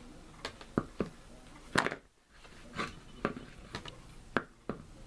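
Irregular clicks and knocks as a box fan blade is handled and worked onto the motor shaft, about nine sharp taps with the loudest a little under two seconds in.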